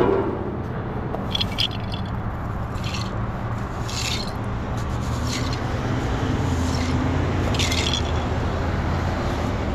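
Push broom sweeping crash debris and oil absorbent across a grooved concrete road, five short scraping strokes over a steady low rumble.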